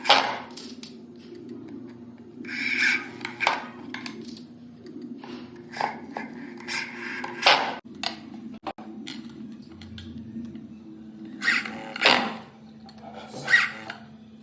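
Woodworking hand-tool sounds on wood: short scraping, rasping strokes and sharp knocks at irregular intervals, over a steady low hum.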